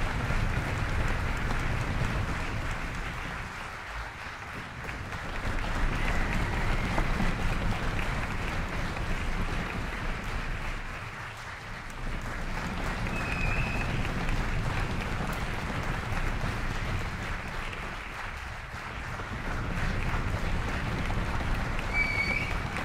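Concert audience applauding, the clapping swelling and easing in waves, with a few short high whistles cutting through.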